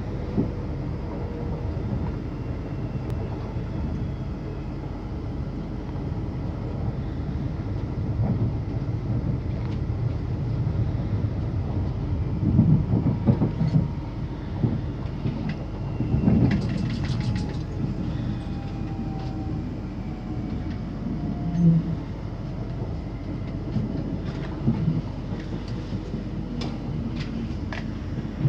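Inside a Class 444 electric multiple unit running on the rails: a steady low rumble of wheels on track, with louder bursts of rapid clattering over rail joints and points, twice around the middle. A faint electric motor whine falls slowly in pitch as the train slows for its arrival.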